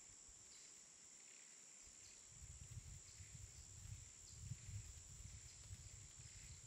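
Faint forest ambience: a steady high-pitched insect drone, with a soft chirp repeating about once a second. A low rumble comes in about two seconds in.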